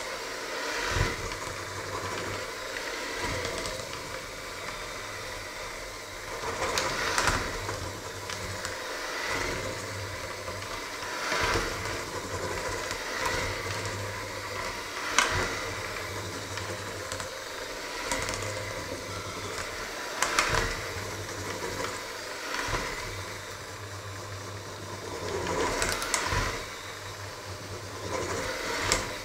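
Electric hand mixer running steadily, its beaters working a thick mixture in a stainless steel bowl, growing louder in brief swells every few seconds.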